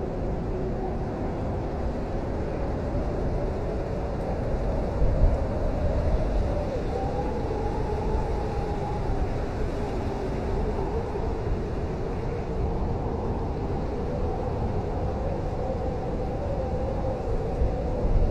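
Blizzard wind blowing: a steady low rumble with a wavering whistle that drifts up and down in pitch, and brief stronger gusts about five seconds in and near the end.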